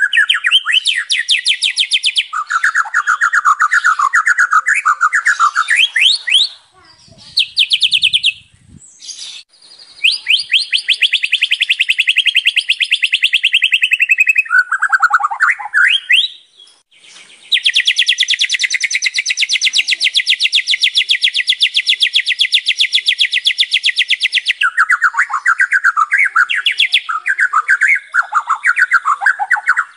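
White-rumped shama singing a song packed with mimicked fill-in phrases, in long runs of rapid, rattling repeated notes. It breaks off briefly about six and sixteen seconds in.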